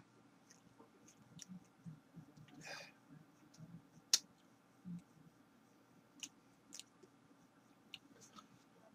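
Faint lip smacks and tongue clicks from a man tasting hot sauce, with one sharper click about four seconds in and a short breath just before three seconds.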